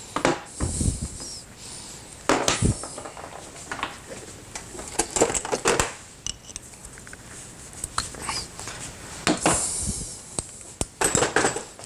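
Irregular metallic clinks and short scrapes of hand tools on engine parts as the piston pin is worked out of the piston of a scooter engine, in scattered bursts with pauses between.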